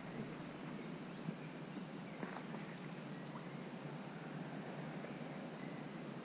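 Quiet outdoor background hiss with faint, brief bird chirps scattered throughout, and a soft splash about two seconds in as a thrown magnet-fishing magnet lands in the canal.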